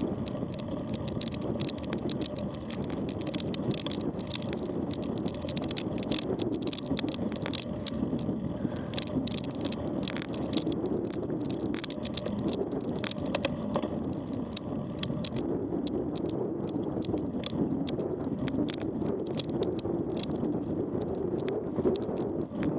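Mountain bike riding over a rough dirt and gravel track: a steady rumble of knobbly tyres with constant small clicks and rattles from the bike and loose stones, and wind on the microphone.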